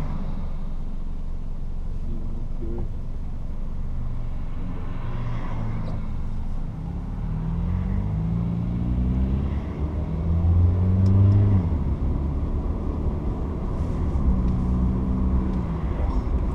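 Low traffic rumble with a motor vehicle engine accelerating. About seven seconds in, the engine's pitch climbs in steps for several seconds and then drops away, and it runs again more briefly near the end.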